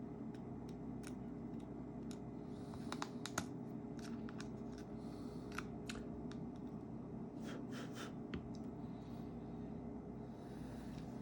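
Light, scattered clicks and taps of small metal tools and parts being handled on an iPhone during repair, a cluster of them about three seconds in and more later, over a steady low hum.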